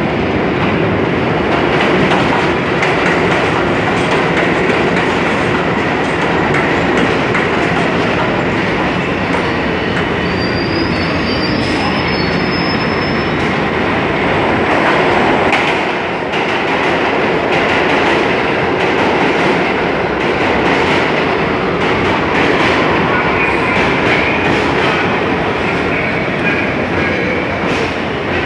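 New York City IRT subway train running through an underground station: a steady, loud rumble of steel wheels on the rails, with a brief high wheel squeal about ten seconds in.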